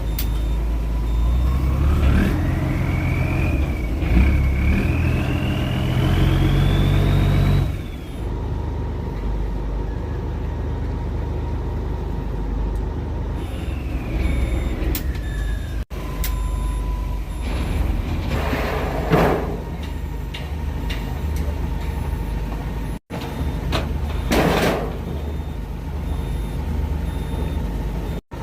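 Boat engine running with a steady low drone. For the first several seconds it picks up with a rising whine, then drops back abruptly, and later gives a shorter falling whine. Two brief rushing noises come in the second half.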